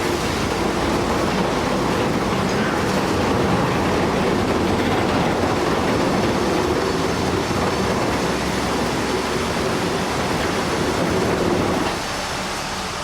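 Heavy machinery running steadily: a continuous loud rumbling noise that eases off slightly about twelve seconds in.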